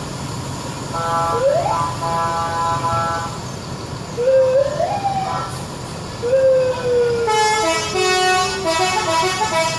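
Indonesian bus 'telolet' musical air horn. It holds a multi-note chord, then sounds siren-like pitch slides: a rising one, then a long falling one. A second, fuller chord plays over the slide near the end.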